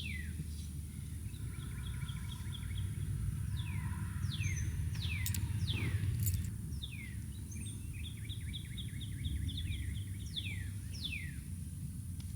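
Songbirds singing: many quick down-slurred chirps and rapid trilled runs of notes, over a steady low rumble. Two sharp clicks about halfway through.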